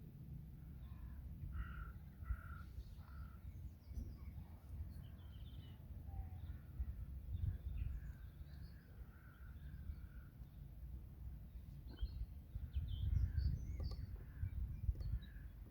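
Birds calling by a pond: short harsh calls, three in a row about two seconds in and a longer run of them around eight to ten seconds in, with small birds chirping higher up, over a steady low rumble.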